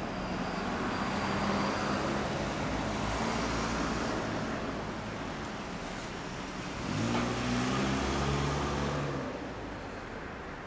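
Yamaha YZF-R1 inline-four engine running through a Two Brothers Racing V.A.L.E. dual slip-on exhaust with carbon silencers. About seven seconds in it gets louder and its note shifts up for a couple of seconds, then it drops back.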